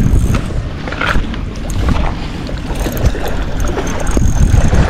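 Wind buffeting the microphone in a loud low rumble, with sea water washing against the breakwater rocks.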